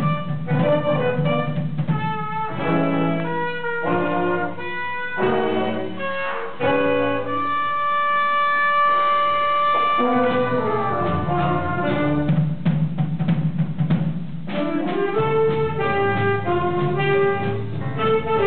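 A student jazz band playing, with the trumpets out front. About halfway through, the low rhythm part drops out under one long held note, then comes back in with the full band.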